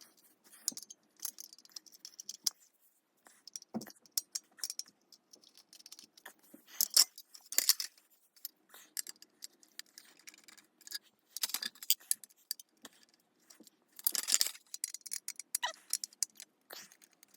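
Screws being backed out of a Sterling F-2 siren's intake horn: irregular metallic clicks, scrapes and clinks of the screwdriver and screws against the horn's metal.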